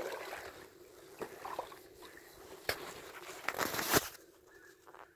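Kayak paddle strokes: the blade dips and splashes in the lake water, with dripping and a few light knocks. The loudest splash comes a little before the end.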